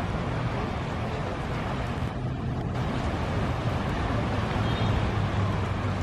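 Sea surf washing steadily onto a sandy beach, with wind rumbling on the microphone.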